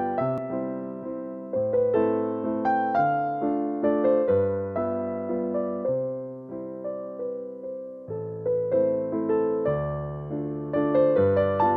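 Background music: an electric piano plays a melody over low bass notes, each note struck and fading.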